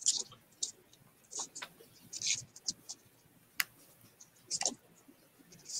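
Folded paper of a paper airplane rustling and crinkling in short bursts as it is handled at the nose, with one sharp click a little past halfway.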